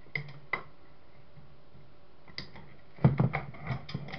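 Two sharp clicks, then about three seconds in a short burst of clattering knocks: metal parts and tools being handled while taking apart a CCTV camera's pan-tilt housing.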